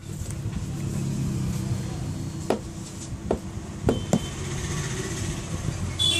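Steady low traffic rumble with a few sharp clicks in the middle and a short car horn toot right at the end.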